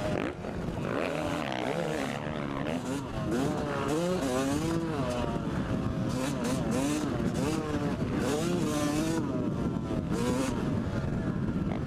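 Yamaha YZ250 two-stroke motocross engine under hard riding, its pitch rising and falling again and again as the throttle is worked, with wind rushing over the microphone at speed.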